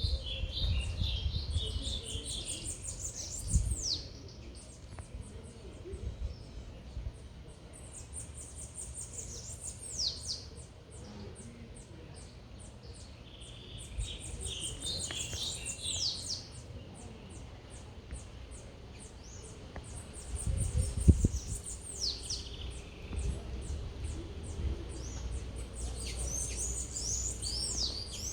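A songbird singing short phrases of high chirps ending in quick falling whistles, repeated about every six seconds, over a steady low rumble of city background noise. A low thump about three-quarters of the way through is the loudest moment.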